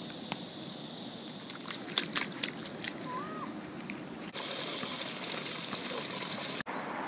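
A few sharp splashes and slaps in a shallow muddy puddle on grass. About four seconds in this gives way suddenly to a steady hiss of water running from a granite fountain spout, which cuts off shortly before the end.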